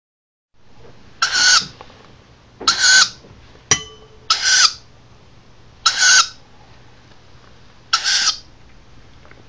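Owl chick giving five short raspy calls, spaced about a second and a half apart: food-begging calls as it is being fed. A single sharp click with a brief ring falls between the second and third calls.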